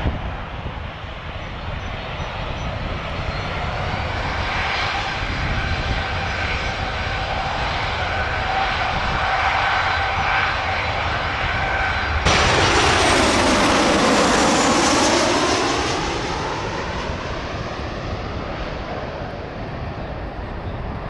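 Jet airliner engines running on the runway with a steady whine that slowly builds; about twelve seconds in, the much louder roar of a Ryanair Boeing 737-800 passing close overhead on approach cuts in, with a whooshing sweep that falls and then rises, fading after about four seconds.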